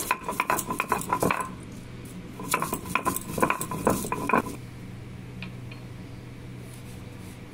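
Stone roller of a sil-batta grinding stone crushing fried dry red chillies against the stone slab: two spells of rapid clattering knocks, stone on stone, in the first half. After that only a low steady hum remains.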